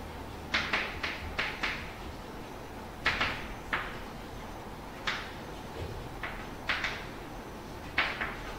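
Chalk writing on a chalkboard: short scratchy strokes and taps in irregular clusters, with brief pauses between words, over a faint steady room hum.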